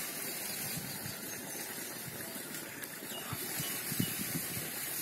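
Hands kneading small red snapper fish into a wet masala paste in a steel plate: faint soft squelches, with a light knock about four seconds in, over a steady outdoor hiss.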